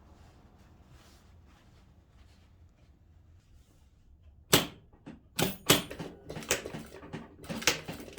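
Quiet room tone, then from about halfway in a run of sharp clicks and knocks, as of hard objects being handled and set down.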